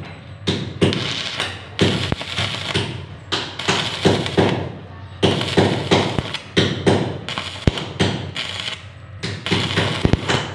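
Stick welding with a 2.0 mm SS-308 stainless steel electrode on a stainless steel post: the arc crackling and sizzling irregularly, with a few brief breaks where it stops and is struck again.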